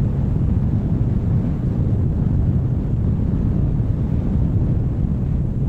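Steady low rumble of wind buffeting the microphone, with no separate events.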